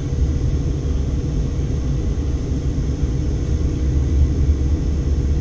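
Steady low rumble of road and engine noise inside a moving Mercedes-Benz car's cabin, with a faint steady hum.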